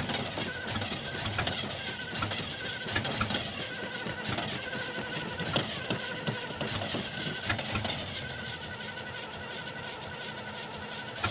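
Starter motor cranking a 1975 Oldsmobile's engine, a rhythmic pulsing whine as the engine turns over without starting.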